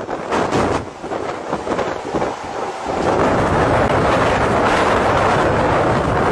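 Severe storm noise, wind and rain: gusty and uneven at first, then a steady loud rush from about three seconds in.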